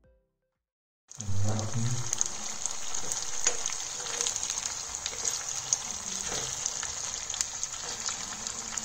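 Olive oil frying and spluttering around small red onions and a henna and curry leaf paste in a pan, a steady sizzle with frequent sharp pops, starting about a second in. The spluttering marks the stage at which the flame is turned down.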